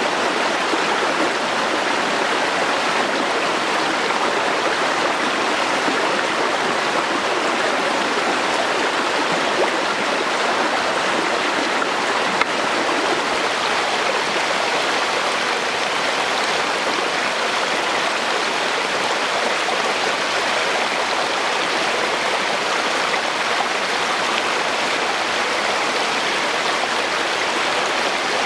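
Shallow rocky stream running over stones and small cascades: a steady, unbroken rush of water.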